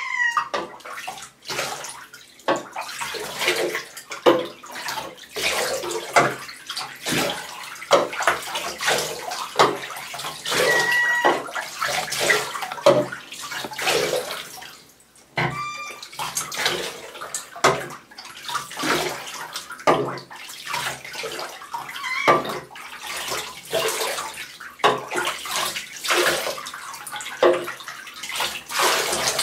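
Shallow bathwater splashing and sloshing in a bathtub in irregular, uneven bursts as hands scoop and rub water over a cat.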